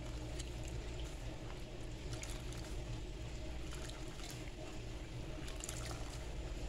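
Wet kitchen sponge rubbed and squeezed on a bar of homemade soap and dipped in a tub of water, with faint scratches and dripping, working up lather.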